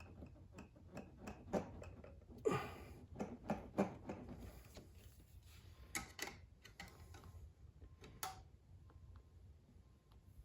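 Light, irregular metal taps and clicks as a stuck valve in a small engine's cylinder head is tapped back and forth to free it.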